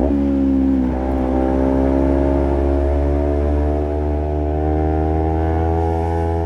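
Honda CBR250RR parallel-twin engine through a Project 79 slip-on exhaust, under way. The pitch drops sharply twice in the first second, as with two upshifts, then the revs climb steadily as the bike accelerates.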